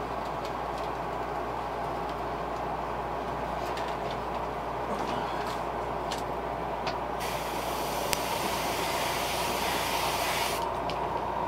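Airbrush hissing as it sprays paint onto a fishing lure: a few short puffs, then one steadier spray of about three seconds in the second half, over a steady background hum.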